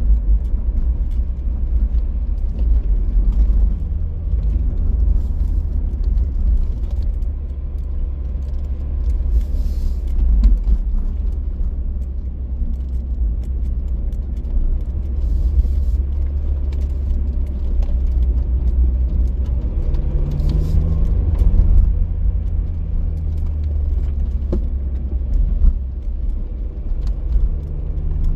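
Car driving: a steady low rumble of engine and road noise, with the engine note rising briefly about twenty seconds in and again near the end.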